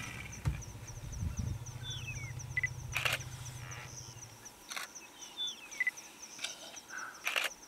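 Outdoor wildlife ambience: insects chirring steadily on one high pulsing note, and a bird giving a short descending call a few times. A few sharp clicks and a low hum that cuts off about four and a half seconds in.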